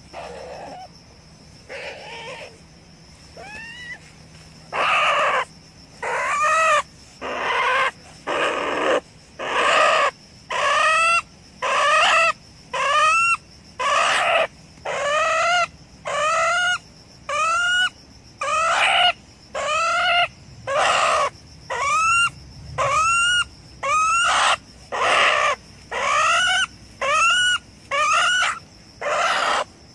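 A trapped ferret-badger giving loud, repeated cries as it is handled, about one a second, each rising then falling in pitch. The cries are fainter and sparser for the first few seconds.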